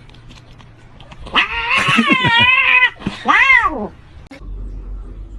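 Domestic cat yowling: a long call with a wavering pitch lasting about a second and a half, then a shorter call that rises and falls.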